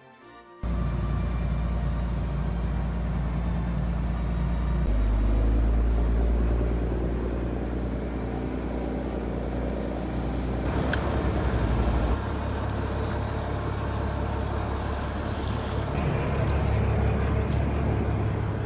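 Fishing boat's engine running as a steady low rumble, mixed with wind on the microphone and sea noise; the sound changes abruptly several times.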